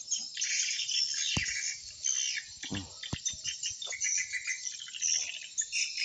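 Swiftlets twittering: a dense, continuous chatter of high chirps. A couple of sharp clicks cut through, about a second and a half in and again near three seconds.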